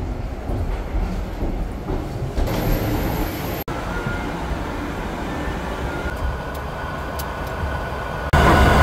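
Steady low rumble and hiss of aircraft air-conditioning and ground equipment during boarding. After a cut about four seconds in, a faint steady whine runs under the cabin air noise. The sound jumps louder just before the end.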